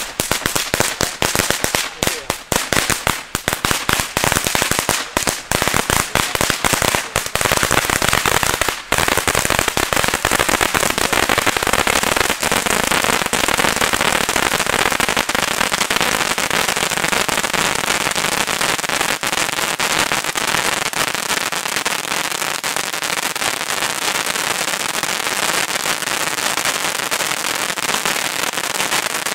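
Pyroland 'Queen of Welding' ground fountain (Vulkan) burning: a rapid string of crackling pops for the first nine seconds or so, then a steady loud rushing hiss of sparks with fine crackle running through it.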